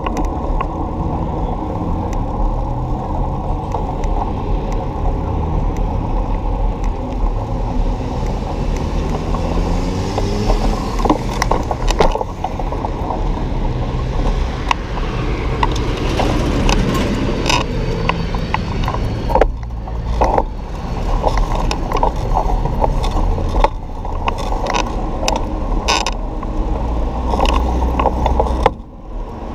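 Steady rumble of a bicycle ride along a city street, with cars passing on the road alongside. The bike clatters sharply over bumps several times.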